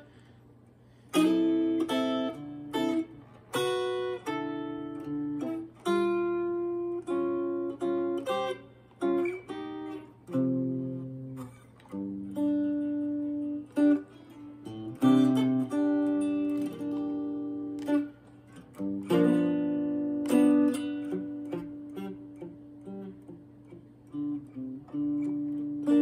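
Acoustic guitar playing a blues tune: picked notes and strummed chords that ring and fade one after another.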